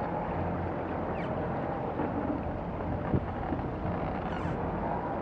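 A motorboat engine running steadily under wind buffeting the microphone and water washing around the capsized catamaran's hull, with a single knock about three seconds in.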